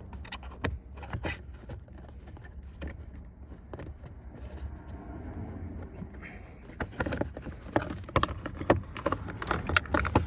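Scattered small clicks, taps and rattles of hands handling parts and wiring at a car's steering wheel during a paddle-shifter install, getting busier after about seven seconds.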